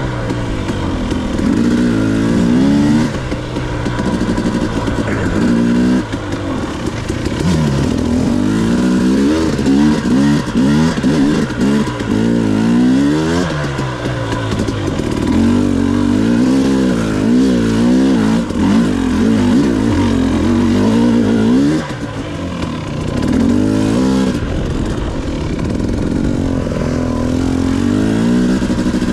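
Two-stroke dirt bike engine under way on a trail, its revs climbing and dropping again and again as the rider opens and closes the throttle and shifts, with a brief easing off a little past two-thirds of the way through.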